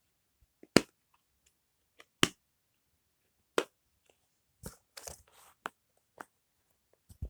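Push-pop fidget toy being pressed: sharp single pops about a second apart, with a brief rustle about five seconds in.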